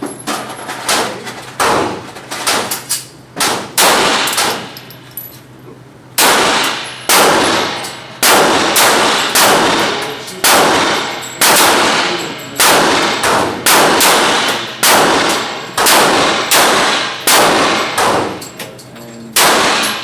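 Handgun shots on a shooting range: a long, irregular string of sharp reports, each with an echoing tail, roughly one to two a second, with a pause of about two seconds a little after the first third.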